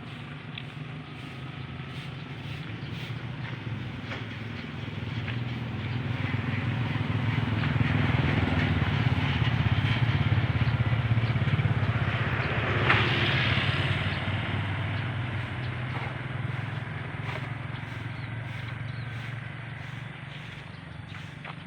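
A motor vehicle's engine passing by, growing louder over several seconds and then fading away, with a brief sharper burst near the loudest point.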